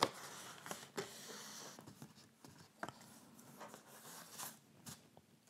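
Faint rustling of card stock with a few light ticks and taps as a pop-up card is opened on a cutting mat and its folded pop-up piece stands up.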